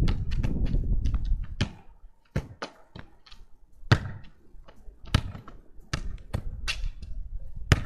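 Football being kicked against a wall over and over: sharp thuds of the kicks, the ball hitting the wall and bouncing on the ground, about a dozen impacts at an uneven pace. A low rumble covers the first second and a half.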